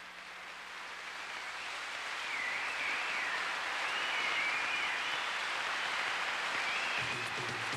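Audience applause swelling up after a song and holding steady, with a high wavering whistle-like sound riding over it through the middle.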